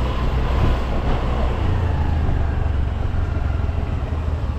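Motorcycle engine running steadily while riding, a low rumble mixed with wind noise on the microphone.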